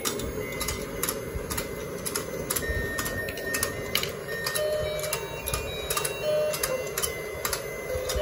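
Battery-powered rotating toy fishing game running: its small motor whirring steadily, with regular plastic clicks about twice a second as the pond turns, and a few short electronic notes of its tune.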